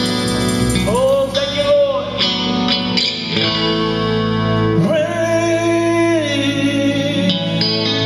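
A man sings two long held phrases into a microphone, one about a second in and one near five seconds in, over a Telecaster-style electric guitar playing sustained chords.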